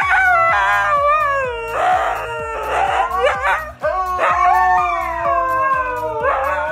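Dogs howling: a husky howls in long wavering calls that glide up and down, at times with a second howling voice overlapping. The howling breaks off briefly about four seconds in, then resumes.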